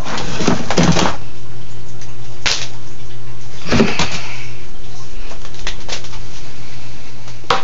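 Handling noises as a siphon hose and pipe are readied at a reef tank's sump: a few short scrapes and knocks, about a second in, midway and near the end, over a steady low electrical hum.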